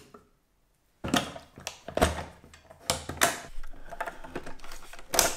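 Hard plastic clatter from a Ninja blender jar being handled: a spoon clicks against the jar at the start, then from about a second in comes a run of sharp clicks and knocks as the jar is set on the motor base.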